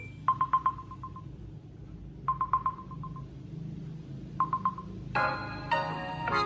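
Samsung Galaxy A13 phone speaker previewing alarm tones: a quick run of single-pitch beeps repeats three times, about two seconds apart. About five seconds in, a different, melodic chiming alarm tone starts.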